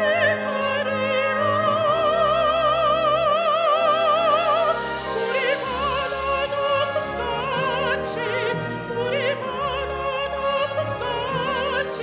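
Female classical soloist singing a sacred offertory song with wide operatic vibrato over instrumental accompaniment. She holds one long note for the first few seconds, then moves through a run of shorter notes.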